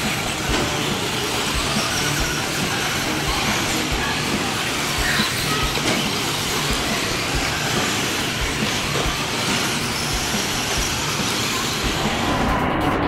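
Traxxas Slash electric RC short-course trucks racing on an indoor dirt track, heard within a steady, even din. Music comes in near the end.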